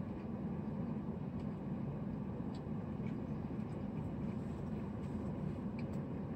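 Steady low hum of a car heard from inside its cabin, with a few faint soft ticks over it.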